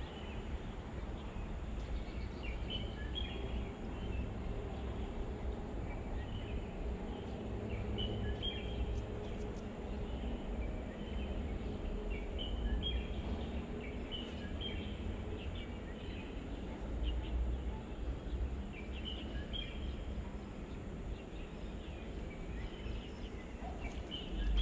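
Outdoor riverside ambience: scattered short bird chirps over a steady low rumble. Near the end there is a brief splash as a hooked tilapia is lifted to the surface.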